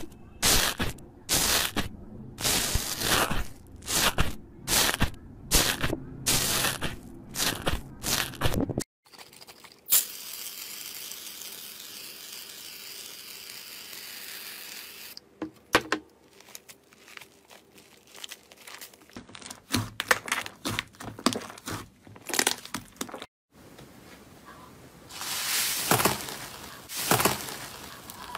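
Slime being pressed and squished, with no speech. For about the first nine seconds a metal tool presses repeatedly into bubbly foam slime with crackly, popping squelches. Then comes a steady hiss for several seconds, a few scattered squishes, and near the end louder crinkly crackles as a hand pushes into a thick slime.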